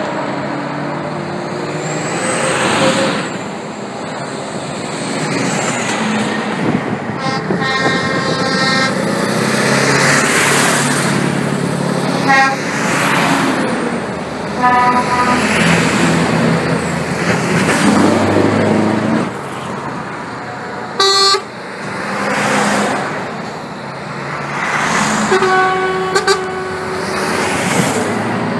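A convoy of heavy lorries driving past one after another, engines and tyres swelling and fading as each goes by, with trucks sounding their horns about five times: two longer blasts and several short toots, the loudest a brief blast near the middle.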